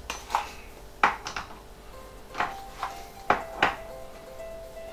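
A metal measuring spoon clicking and tapping against a small tin as yeast is scooped out: about seven short, sharp clinks spread over the few seconds. Faint background music runs underneath.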